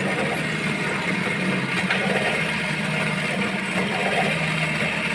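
A motor running steadily with an even, unchanging hum, like an engine idling.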